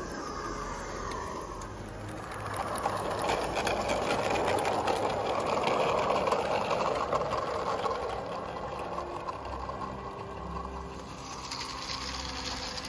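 Small live-steam garden-railway locomotive and its coaches running along the track, a busy clatter with fine rapid ticks that grows louder as the train passes close about midway and then fades.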